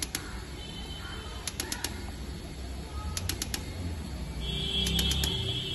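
Fuel injector cleaning and testing machine running with four petrol injectors mounted: quick clusters of four sharp clicks about every second and a half over a steady low hum. A steady high tone joins about four seconds in.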